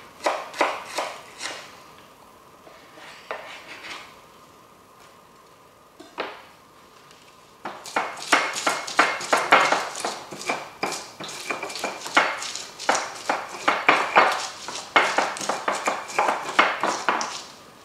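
Stone pestle pounding and grinding red chilies and shallots in a stone mortar for sambal: a dense, rapid run of knocks and scrapes that starts about eight seconds in and keeps going. Just before that, a few quick knife chops on a cutting board.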